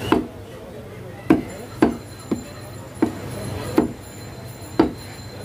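Butcher's cleaver chopping meat on a wooden log block: about seven sharp chops at uneven spacing, roughly half a second to a second apart.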